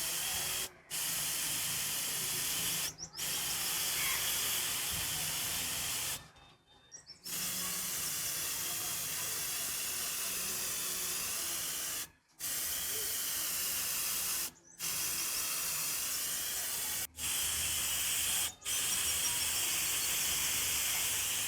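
Aerosol-style spray hissing in repeated bursts of one to five seconds, with short breaks between them: paint being sprayed onto the lamp's parts.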